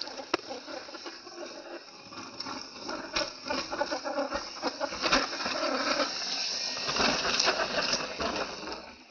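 Radio-controlled rock crawler driving over rocks: crunching and scraping of tyres on stone, with sharp clicks and knocks. The sound builds up about halfway through and eases off near the end.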